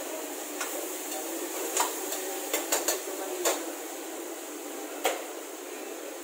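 Metal cooking utensils clanking against a steel wok: about six sharp knocks, with a quick run of three about two and a half seconds in and a last one about five seconds in, over a steady background hiss.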